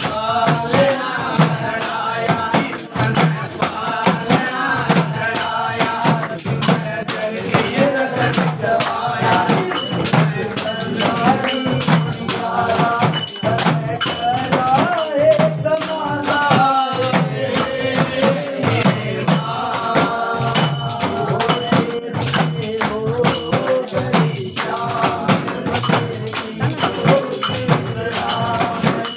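Group of people singing a Hindu devotional bhajan to the goddess Durga together, with hand-clapping and jingling percussion keeping a steady rhythm.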